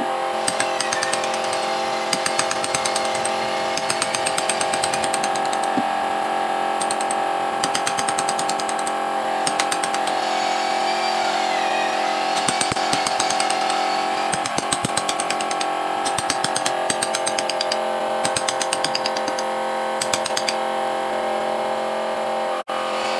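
Electric power tool running steadily as it cuts into wood for carving, a constant motor whine with rapid rattling clicks.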